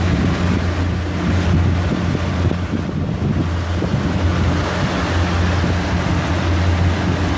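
Motorboat engine running at a steady low drone while under way, with water rushing past the hull and wind on the microphone.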